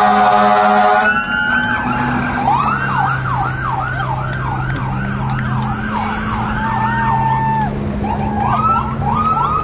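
Fire truck horn blast cutting off about a second in, then the truck's siren winding up and switching to a fast up-and-down yelp, about two sweeps a second, before rising into a long wail again near the end. The trucks' engines run underneath.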